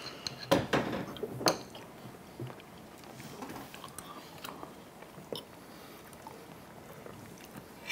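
People eating at a counter: forks clinking against plates and chewing, with a few sharp clinks in the first second and a half, then faint scattered clicks.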